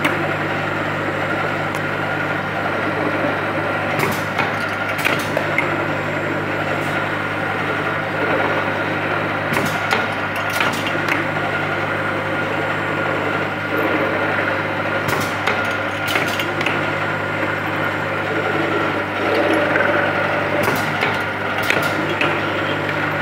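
Automatic tapping machine with an indexing table running: a steady motor hum with a high tone, broken by pairs of sharp metallic clicks about every five to six seconds as the machine cycles.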